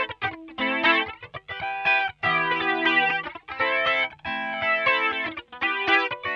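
Music on guitar with effects, sustained chords in short phrases separated by brief gaps.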